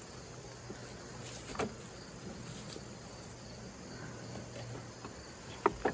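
John Deere riding lawn tractor's engine running with a steady low hum as it is driven up through brush, with a sharp snap about a second and a half in.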